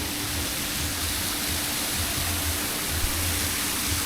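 Steady heavy rain, a constant even hiss.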